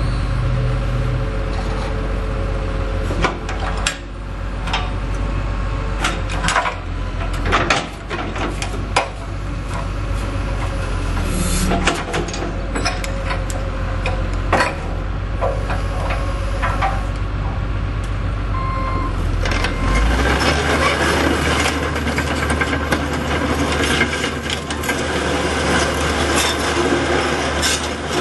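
John Deere 225C LC hydraulic excavator running, its diesel engine a steady low hum under scattered clanks and knocks from the working machine. About twenty seconds in, the engine note shifts and a denser, rougher metallic clatter sets in.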